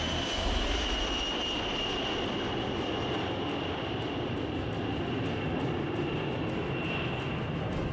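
Aircraft engine running with a steady rushing noise and a high whine that slowly falls in pitch.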